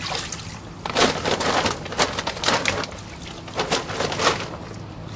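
Water splashing in a plastic tub as bass are handled by hand, a run of short, irregular splashes.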